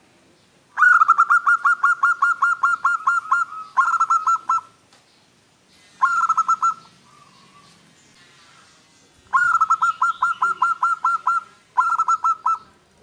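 Zebra dove (perkutut) cooing in quick runs of short, staccato notes. There are five bouts: a long run about a second in, short ones near 4 and 6 seconds, another long run near 9 seconds and a short one near the end.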